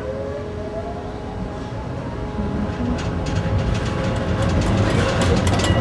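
A rail vehicle running, heard from inside: a steady low rumble with an electric motor whine rising in pitch as it speeds up. About halfway through, rattling clicks from the wheels and track join in and grow louder.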